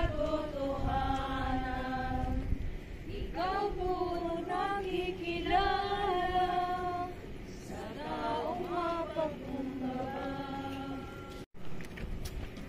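A group of voices singing a slow Tagalog hymn in unison, with long held notes across three phrases. The singing stops about a second before the end, with a brief dropout in the sound.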